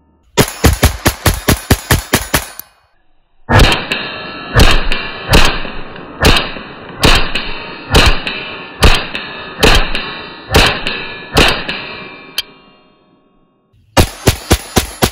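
.22 LR semi-automatic pistol firing. A quick string of about ten shots is followed by a short pause, then a slower run of shots about a second apart, then another rapid string near the end.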